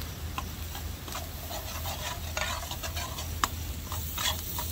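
Metal ladle scraping and clinking in a wok as chopped garlic is stirred in melted butter, over a light sizzle.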